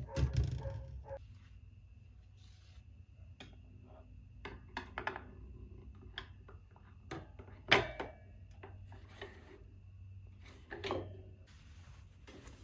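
White wire under-shelf basket being handled and hooked onto a shelf: scattered clinks, knocks and rubbing of metal wire, the loudest knock about eight seconds in.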